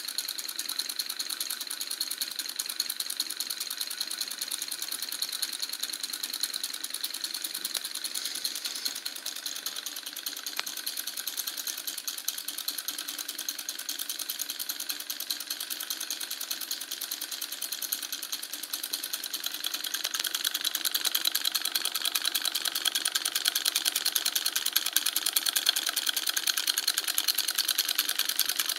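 Homemade two-cylinder solenoid engine with 12-volt long-stroke solenoids running at a steady speed: a fast, even mechanical clatter. It gets louder about two-thirds of the way through.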